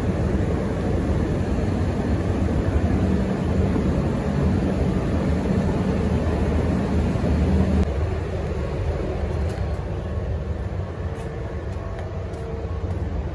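Steady low rumble and hum of outdoor ambience, with a steady low machine hum that drops out about eight seconds in, leaving a slightly quieter rumble.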